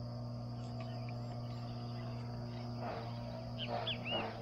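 Steady chirring of insects over a low steady hum. From about three seconds in, scratchy noise and a few short chirps join it.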